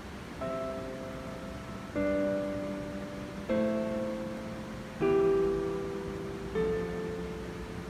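Background music: slow piano chords, a new chord struck about every one and a half seconds and each left to fade.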